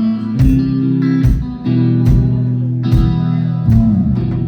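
Live rock band playing an instrumental stretch: strummed guitar chords over a bass line, with drum and cymbal hits about once a second.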